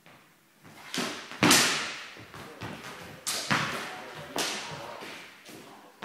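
Longsword blades clashing in a sparring exchange: about six sharp strikes, the loudest about one and a half seconds in, each ringing away slowly in a large, echoing sports hall.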